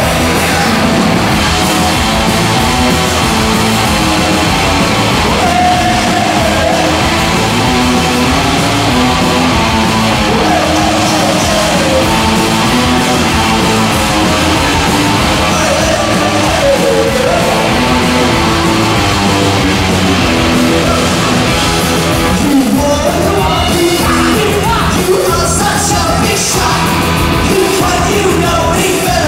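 A rock band playing loud and live on stage: distorted electric guitars, bass and drums, with singing.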